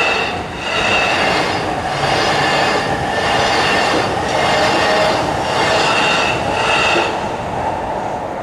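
Nambu Line electric train passing the level crossing at close range: a loud rush of wheels on rail with a high ringing wheel tone, swelling and dipping about once a second as each car goes by.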